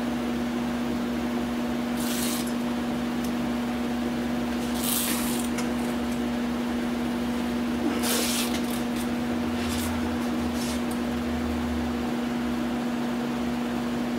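Masking tape pulled off the roll in a few short tearing bursts as it is laid along a truck cap's rubber window seal, over a steady machine hum.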